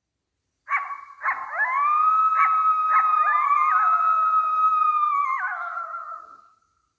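A canine howling: a few short yips, then two long drawn-out howls that rise and hold, fading out near the end.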